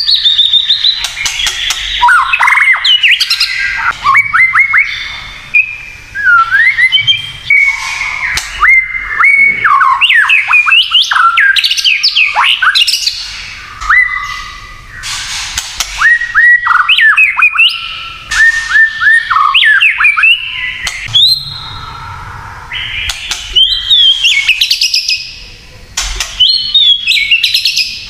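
White-rumped shama singing a long, unbroken run of quick whistled phrases with rising and falling sweeps, mixed with harsh, raspy crackling notes.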